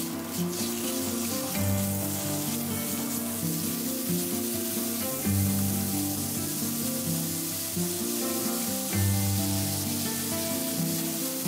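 Ground pork and green onion sizzling in a hot nonstick frying pan as a silicone spatula stirs them, with background music playing over it.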